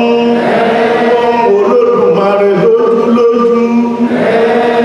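Ifa chanting: a group of voices singing a slow chant together in held, shifting notes, part of an opening invocation paying respects to the elders.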